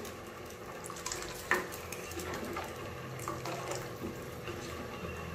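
Steel ladle stirring a thick, simmering chutney in a steel pot: the liquid sloshes and the ladle clinks lightly against the pot, once more sharply about a second and a half in.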